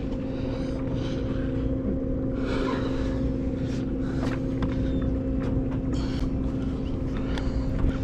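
Steady hum of the fishing boat's machinery under a low rumble, with scattered light clicks and rustles.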